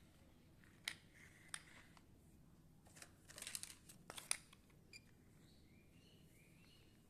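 Plastic toy cars being handled on a cloth: a few sharp light clicks and a short patch of rustling and knocking around the middle, with the loudest click a little past the midpoint.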